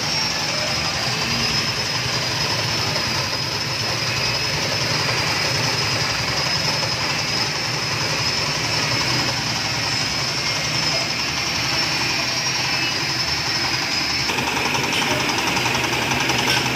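Engine-driven stainless steel sago-trunk grating machine running under load as split sago trunk pieces are pushed against its spinning grater drum: a steady mechanical noise with a high, slightly wavering whine.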